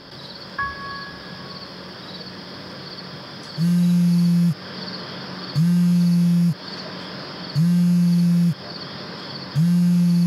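A mobile phone buzzing for an incoming call: four one-second buzzes about two seconds apart, starting a few seconds in. Crickets chirp steadily behind it.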